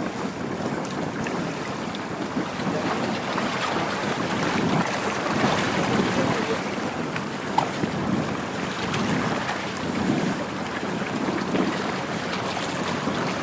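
Wind buffeting the microphone: a steady rushing noise that swells and eases in gusts.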